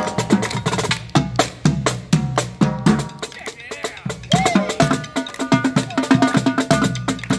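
Marching drum line playing a fast cadence on two snare drums and a set of four tenor drums, a dense run of sharp stick strikes mixed with short pitched tenor-drum tones.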